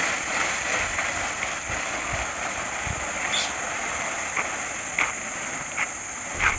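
Steady rustling hiss of walking outdoors on a dirt path, with a few soft clicks or footfalls in the second half.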